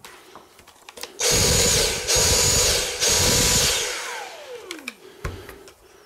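A small electric motor runs in three bursts of about a second each with a steady high whine, then winds down with a falling pitch. A sharp click follows near the end.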